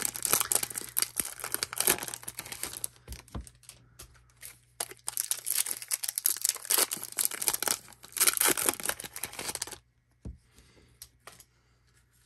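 Foil wrapper of a baseball card hobby pack being torn open and crinkled in a series of bursts, stopping about ten seconds in, with only faint handling sounds after.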